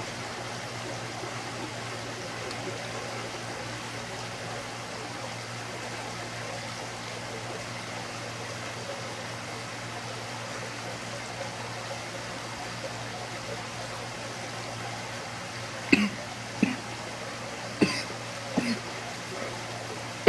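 A man coughing four times, short and sharp, in the last few seconds after inhaling a hit of thick cannabis smoke from a glass hand pipe. The coughs come over a steady hiss with a low hum.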